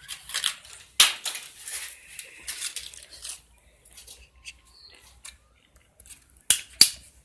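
Cutting through a thin aluminium beer can: irregular snipping and scraping, with a sharp click about a second in and two more close together near the end.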